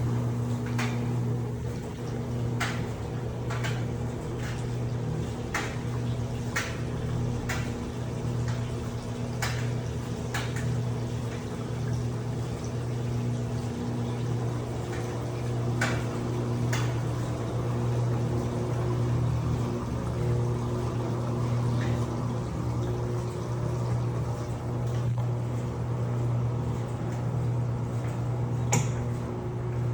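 Electrolux LPE16 washing machine running with a steady low hum while water splashes inside the tub, with scattered sharp splashes and clicks that thin out after about the first half.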